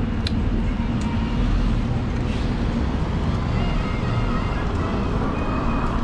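Steady rumbling wind and road noise from riding a fat-tire e-bike, with a few light clicks.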